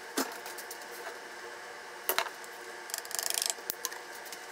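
Small kitchen handling sounds: a few sharp clicks and taps of containers against the counter and a small glass cup. About three seconds in comes a brief, rapid, crisp rattle as ground sesame goes into the cup of sauce.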